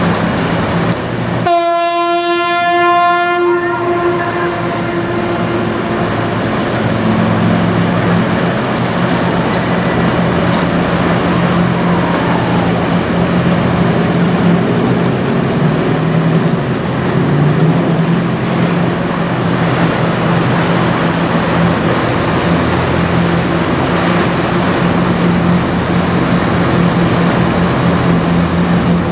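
Low, steady drone of a 142 m general cargo ship's engines passing close by, with the rush of water along its hull. About a second and a half in, a single horn blast starts abruptly and fades away over the next few seconds.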